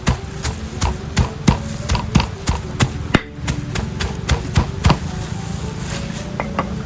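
Knife chopping on a cutting board: sharp, irregular strikes about two to three a second, stopping about five seconds in, followed by a couple of light taps.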